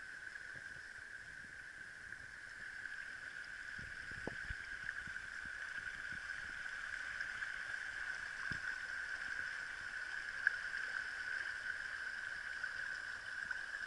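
Steady high-pitched drone of a cicada chorus in the bush, unbroken throughout, with a couple of soft low thumps about four and eight seconds in.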